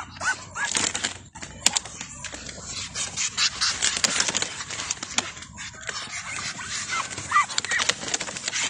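A crowd of Muscovy ducks jostling in a pen: breathy hissing and scuffling throughout, with a few short rising peeps, two near the start and a couple more near the end.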